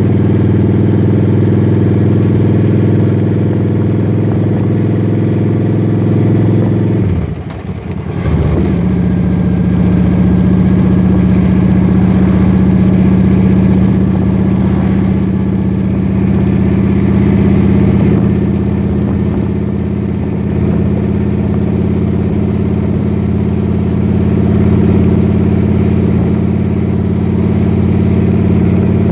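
Engine of the vehicle being ridden, running steadily on the move. About seven seconds in it briefly drops off, then picks up again at a higher pitch and runs on steadily.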